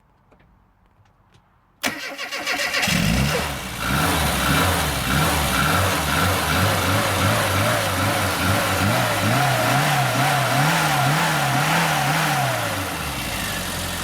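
A car engine cranking and starting about two seconds in, then running with its revs rising and falling in an even, repeated rhythm.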